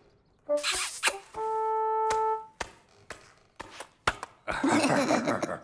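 Cartoon sound effects: a short noisy burst, then one steady held note about a second long, a few sharp clicks, and a longer, louder rushing noise near the end.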